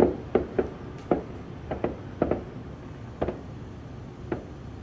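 Distant fireworks going off: about ten sharp pops and bangs at irregular intervals over a faint steady background rumble.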